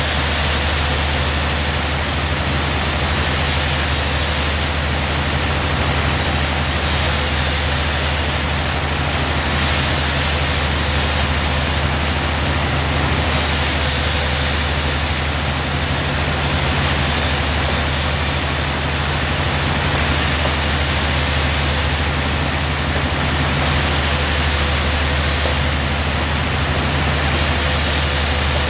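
Sawmill machinery running steadily: a constant low engine hum under an even hiss, with no distinct cuts or strikes.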